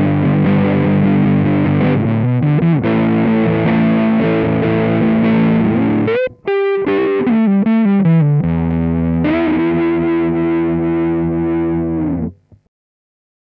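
Electric guitar played through an Electro-Harmonix Big Muff Pi fuzz pedal set at low sustain (sustain 9 o'clock, tone at noon): a distorted chord riff, a short run of sliding single notes about halfway, then a chord held for about four seconds that stops a second before the end.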